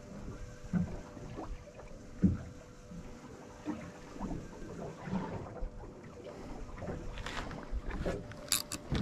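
Ambient noise aboard a fishing boat: a steady low hum with scattered knocks and clatter, and a few sharp clicks near the end.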